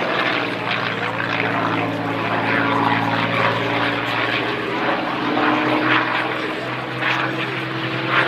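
North American P-51D Mustang in flight overhead, its Packard Merlin V12 engine and propeller running steadily with a deep drone.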